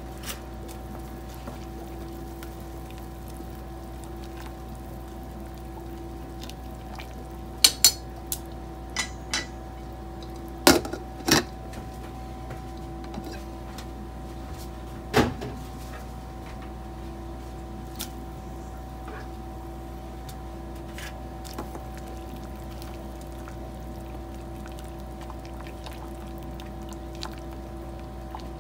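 Steady kitchen hum with a few sharp clinks of kitchenware against a stainless steel cooking pot, the loudest in pairs about eight and eleven seconds in and one more around fifteen seconds.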